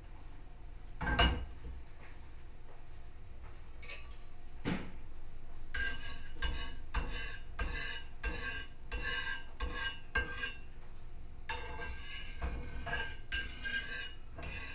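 Stainless slotted turner scraping and tapping across the bottom of a Sori Yanagi iron frying pan as it spreads the oil. The strokes come about two a second, each with a short metallic ring, in two runs with a pause between. A single loud knock comes about a second in.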